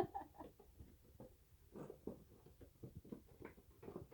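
Cardboard box and printed paper samples being handled: irregular light rustles, taps and clicks, with one sharper tap at the start.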